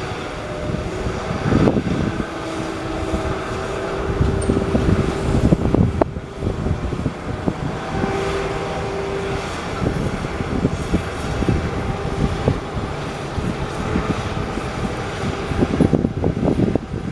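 Heavy diesel construction machinery running: a continuous low engine rumble, with a steady whining tone that comes and goes and a single sharp click about six seconds in.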